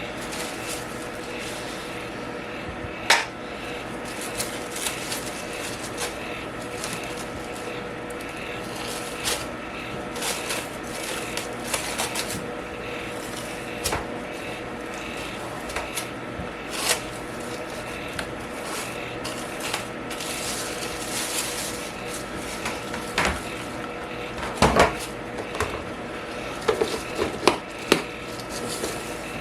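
Steady electric fan hum with scattered light clicks and taps from handling. A sharp click comes about three seconds in, and a cluster of louder taps comes near the end.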